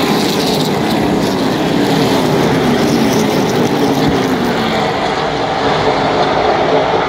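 A pack of ARCA Midwest Tour super late model stock cars running together through a turn, many V8 engines overlapping in one loud, steady din. Several engine notes slide down in pitch as cars go by.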